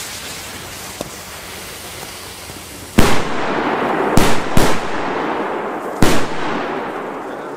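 Four Cialfir Trueno flash-banger firecrackers (1.9 g, Spanish-made) going off one after another. The first very loud bang comes about three seconds in, two more close together a second later, and the last about three seconds after the first, each with an echo trailing off. Before the first bang there is a steady hiss of burning fuses.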